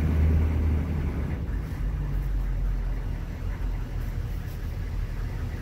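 The 6.5-litre turbo-diesel V8 of a 2002 Chevrolet Express 3500 van running, heard from inside the cab as the van moves off slowly in drive. A steady low rumble, a little louder in the first second.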